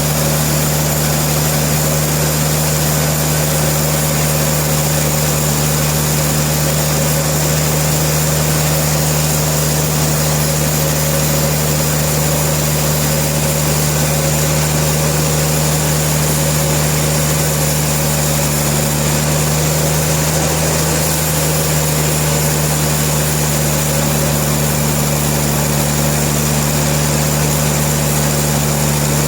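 Sawmill machinery running steadily: a constant engine-like drone with a faint high whine, unchanging throughout.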